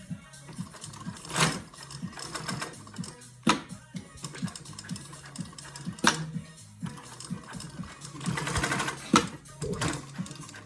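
Dürkopp Adler 367 automatic industrial sewing machine running: a fast steady stitching rhythm with sharp clacks every two or three seconds, and a denser burst of stitching about eight seconds in.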